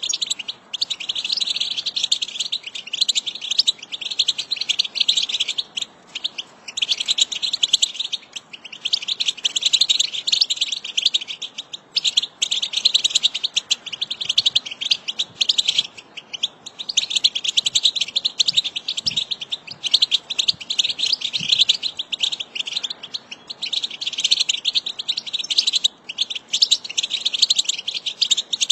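European goldfinch twittering song: rapid runs of high chattering notes in phrases a few seconds long, broken by short pauses.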